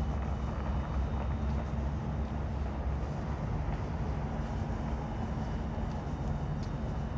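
A steady low mechanical drone, engine- or machinery-like, over a noisy background, with a few faint clicks.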